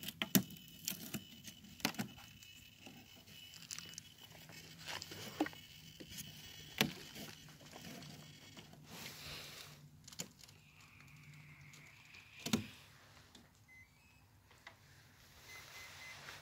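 Handling noise: scattered sharp clicks, taps and rustles of hands working on a small foam RC boat and of a phone being moved about. The clicks are thickest in the first several seconds, and one louder knock comes near the end. A faint high whine rises and falls briefly through the middle.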